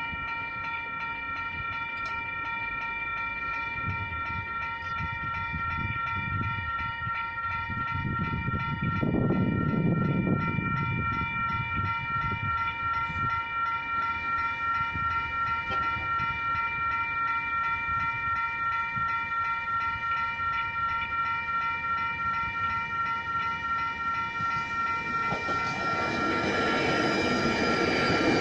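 Level crossing warning bells ring steadily with a fast repeating pulse throughout. A road vehicle passes about nine seconds in. In the last few seconds a Matangi electric multiple-unit train arrives and runs through the crossing, its noise rising over the bells.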